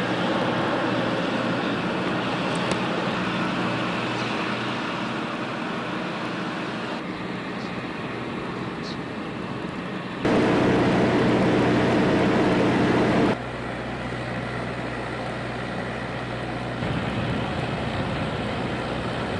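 Outdoor background noise with a steady low hum, like a running engine or distant traffic. It changes abruptly several times and is loudest for about three seconds in the middle.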